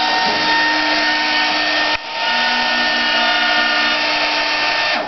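A hovercraft robot's small electric lift fans running with a steady whir and whine. The sound dips briefly about two seconds in, comes back with a slightly different pitch, and cuts off near the end as the craft settles.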